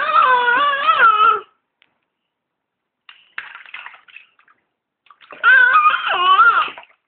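A baby crying in two loud wails, one at the start and one about five seconds in, each wavering in pitch, with bathwater sloshing quietly between them.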